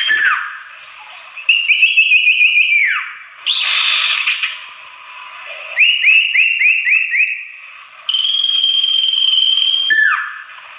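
Common iora (sirtu) song played as a lure call: long, steady, high whistles that drop away at the end, one just at the start and another near the end. Between them come two quick runs of about six chattering notes and a buzzy rasp.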